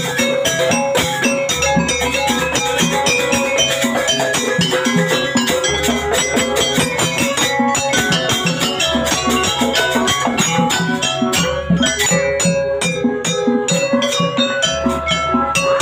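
Jaranan gamelan music played live: dense, quick strokes on tuned metal percussion over drums at a brisk steady beat, with a deep low note sounding every few seconds.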